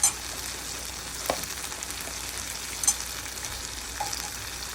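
Dried fish sizzling steadily as it fries in oil in a pan, with a spatula clacking against the pan four times as it is stirred. The fish has reached the bhuna stage, fried down until browned and dry.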